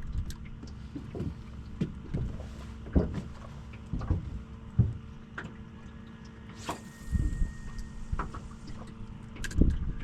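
Wind buffeting the microphone on a small fishing boat, over a low steady hum, with irregular knocks and thumps every second or two.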